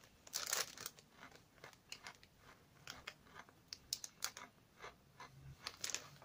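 Faint, irregular crisp crunches of a person chewing Wheat Crunchies, crunchy wheat-tube snacks.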